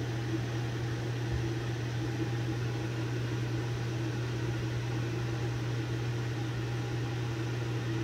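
A steady low mechanical hum with a faint hiss, unchanging throughout.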